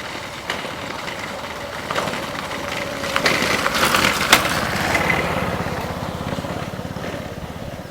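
A small engine running, getting louder toward the middle and then fading.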